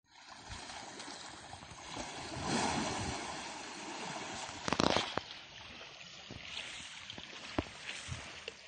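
Water sloshing and splashing as an Asian elephant wades chest-deep through a muddy river, with a louder burst of noise nearly five seconds in and a few sharp clicks later.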